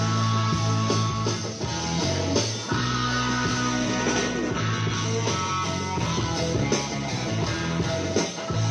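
Music played through a home-built 100+100 W class-D stereo amplifier and a carpeted two-way speaker cabinet with a woofer, a tweeter and a bass port, in an amplifier sound test. A strong bass line of held notes comes and goes every second or so under the rest of the music.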